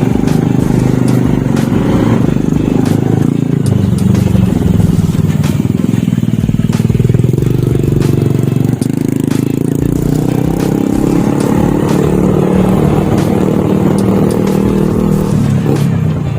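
Motorcycle engine running steadily while riding, its pitch drifting gently up and down.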